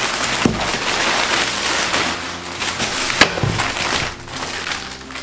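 Thick black plastic shipping bag rustling and crinkling as hands rummage in it and pull it open, with a sharp click about three seconds in.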